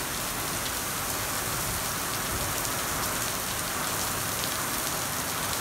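Heavy rain pouring down on wet pavement and road: a steady, even hiss with no thunder.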